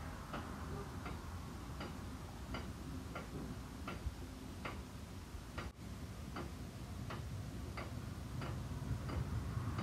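Ratchet of the boom winch on a 1936 Ford boom truck clicking as the boom is winched up, a sharp click about one and a half times a second.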